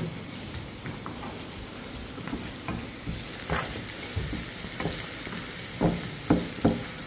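Onion-and-spice masala sizzling in oil in a pan while it is stirred, with scrapes and knocks of the stirring utensil against the pan; a few louder knocks come near the end.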